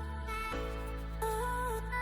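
Background music: a gentle melody of stepped, repeating notes over a steady low bass.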